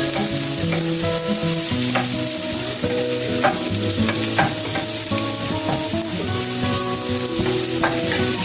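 Chopped onion frying in olive oil in a pan, a steady sizzle, with a few sharp clicks of stirring.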